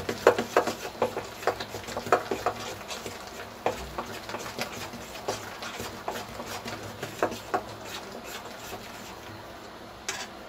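Hand beating thick ground moong dal batter in a steel bowl to work air into it: irregular slaps, several a second at first, growing sparser and dying away in the last couple of seconds.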